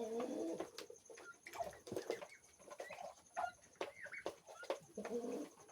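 Young turkeys calling: a low wavering call near the start and another near the end, with short high chirps and many small clicks and taps in between.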